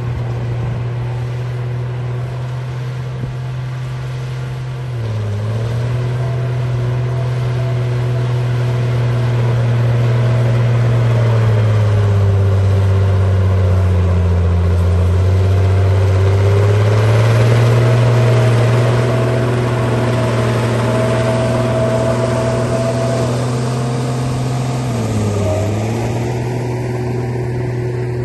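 Bulldozer engine running steadily. Its pitch dips sharply for a moment twice and sags for several seconds in the middle, as it bogs down under load while pushing or pulling.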